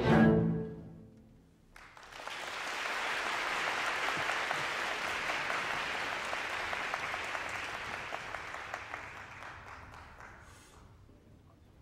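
A theatre orchestra's closing chord dies away in the first second. After a short pause, audience applause breaks out about two seconds in and gradually fades away near the end.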